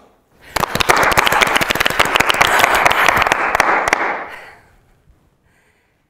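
Audience applauding: a dense burst of clapping that starts about half a second in and dies away over the next four seconds.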